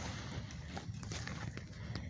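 Footsteps crunching on dry grass and leaf litter, with irregular crackles and clicks.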